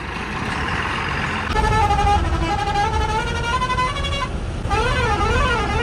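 A heavy multi-axle goods truck drives past on a dirt track. About a second and a half in, a tune of stepped notes starts over its running. Near the end this turns into a warbling tone that wavers up and down about twice a second.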